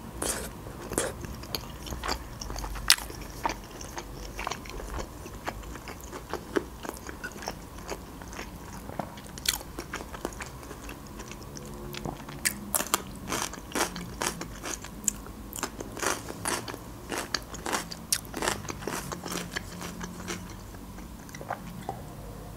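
Close-miked mouth sounds of eating: chewing a forkful of dry casserole, then from about halfway through, a run of crisp crunching bites into raw red bell pepper.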